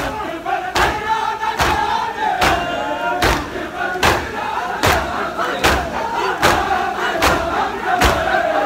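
A large crowd of bare-chested mourners performing matam, striking their chests with open hands in unison about once every 0.8 s. Loud chanting voices run between the strokes.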